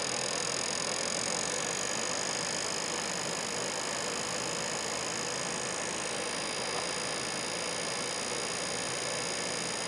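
Steady whirring hiss of running lab equipment, with faint high steady whines over it and no separate knocks or events.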